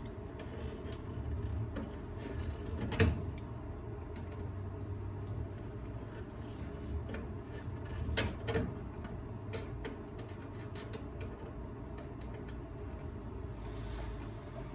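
Scattered light clicks and knocks of a screwdriver and metal parts being handled while wires of a three-prong power cord are fastened to an electric stove's terminal block. The sharpest knock comes about three seconds in, with a few more around eight seconds, over a low steady hum.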